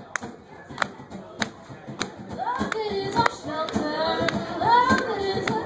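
Hand claps keeping a steady beat, a little under two a second, and about two and a half seconds in, voices start singing a gospel song over them.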